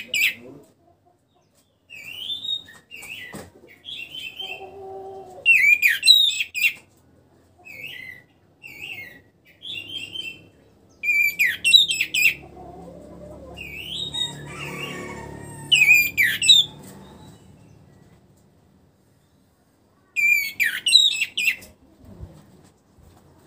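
Orange-headed thrush (anis merah) singing: short, high phrases of quick whistled and chattering notes, repeated every second or two with pauses between. This is a bird just out of its moult and starting to sing freely. A low rumble rises and fades in the background around the middle.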